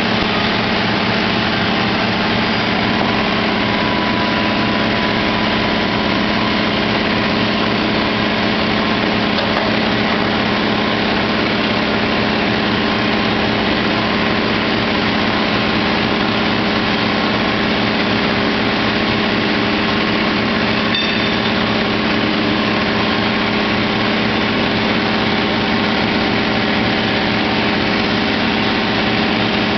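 An engine idling steadily at an even speed, with no revving.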